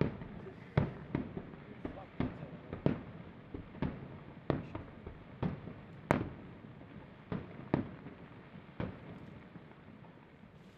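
Aerial firework shells bursting in quick, irregular succession, a sharp bang roughly every half-second to second, the loudest about six seconds in, thinning out near the end.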